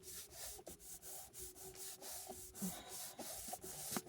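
Quiet, repeated rubbing and scraping of hands working a thin clipboard board into place on drawer slides: a run of short strokes, a few each second.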